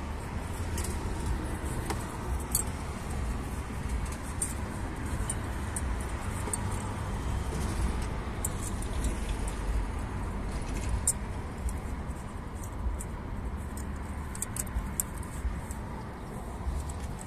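Scattered small metallic clicks and clinks as hands work a metal hose clamp and corrugated rubber hose on a truck engine, over a steady low rumble.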